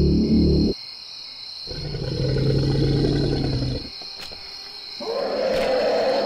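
A pulsing electronic score cuts off within the first second, leaving crickets chirping steadily. A low, rough roar comes in about two seconds in and lasts about two seconds, and another rougher roar swells near the end.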